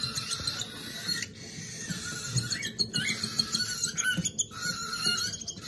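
Baby cockatiel chicks giving repeated squeaky food-begging calls while being hand-fed.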